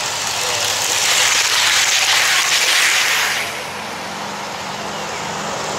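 HO-scale Metrolink model train running past close to the track-level microphone on plastic Kato UniTrack. A hissing whir of wheels and motor swells over about three seconds and then falls away.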